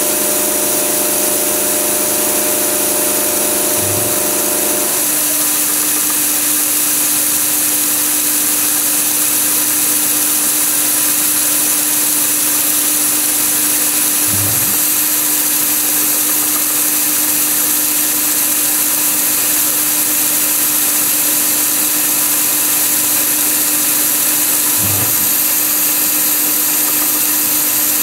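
MAHO MH700C CNC milling machine running, its end mill cutting Hirth-coupling teeth into the face of a part held in a chuck on the rotary axis. The steady hum and hiss change pitch about five seconds in, and a short low thump comes about every ten seconds.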